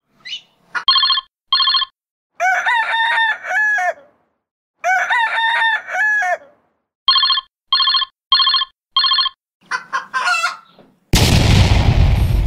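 Cartoon soundtrack sound effects: short, evenly spaced whistle-like toots, two near the start and four in a row later, between two stretches of longer wavering calls. About eleven seconds in comes a loud crash.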